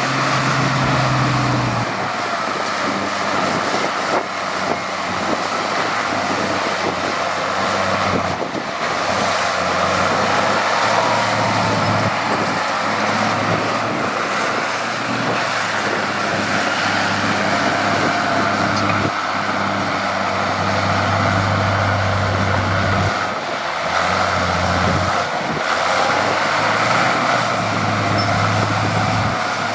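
Heavy diesel engine of earthmoving machinery running under changing load, its low drone stepping up and down in pitch several times, with a faint whine above it.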